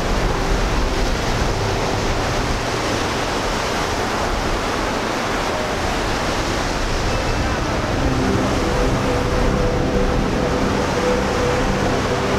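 Ocean surf breaking and washing up the beach, a steady rushing noise. A faint steady hum of several low tones comes in about eight seconds in.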